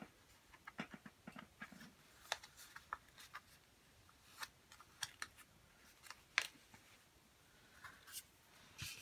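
Faint, scattered small clicks and crinkles of a paper sticker sheet being handled as a sticker is peeled off its backing.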